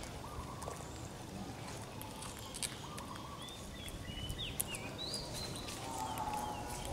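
Faint outdoor ambience with short whistled bird calls, some falling in pitch and some repeated in quick little runs, over a steady background hiss and scattered light clicks.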